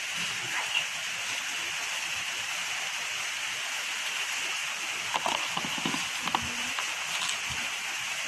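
Steady hiss, with a few light clicks and rustles about five to seven seconds in as small earrings and their card are handled.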